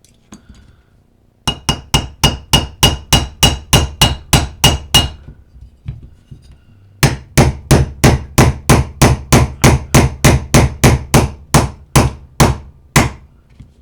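Brass hammer tapping the trigger guard into an AR-15 lower receiver: a quick run of about fifteen even strikes with a metallic ring, a short pause, then about twenty more strikes at roughly four a second.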